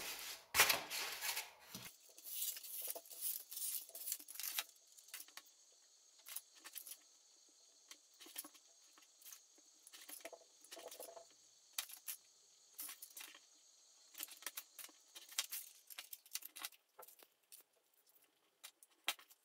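Faint handling noises of styrofoam-plate pieces and a steel ruler being moved about and set down on a cutting mat: scattered light clicks, taps and scrapes, a little busier in the first couple of seconds.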